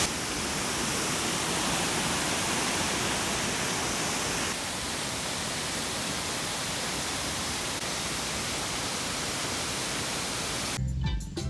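Waterfall rushing steadily over rock ledges, the Great Falls of Tinker's Creek. Music comes in near the end.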